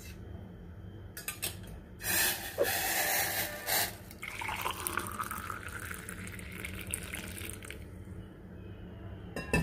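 Just-boiled water being poured into a glass tumbler. It splashes loudly at first, then settles into a filling sound that rises in pitch as the glass fills, and stops about eight seconds in.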